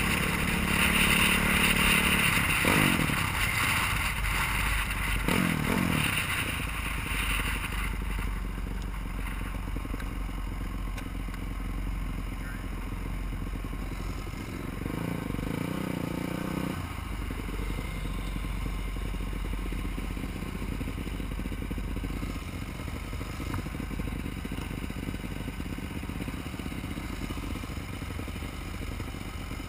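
Honda supermoto motorcycle engine heard from a bike-mounted camera, with heavy wind rush at first and two short revs rising in pitch in the first few seconds. About eight seconds in the wind noise falls away and the engine runs on more quietly at low speed, briefly holding a steadier tone midway.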